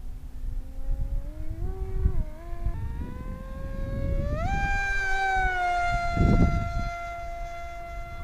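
Brushless electric motor and propeller of an RC flying wing in flight, whining and climbing in pitch in steps as the throttle is opened, then holding a steady high note. Wind buffets the microphone, loudest about six seconds in.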